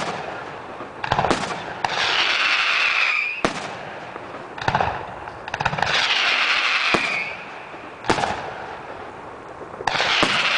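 Aerial fireworks display: shells bursting overhead with about eight sharp bangs over ten seconds, the louder bursts followed by a second or two of crackling hiss.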